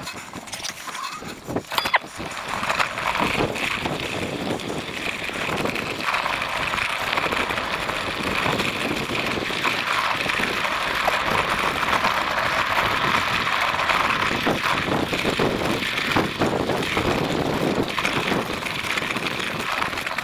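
Electric fat-tyre bike (Cyrusher Ranger) riding over a rough grass and dirt farm track: a steady rush of tyre and ride noise with frequent small knocks and rattles from the bumps.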